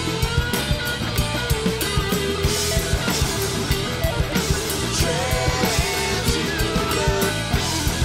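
Background rock music with electric guitar and a steady drum-kit beat.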